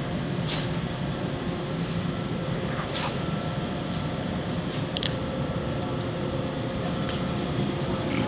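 Steady low background rumble with a faint hum, broken by a few light clicks.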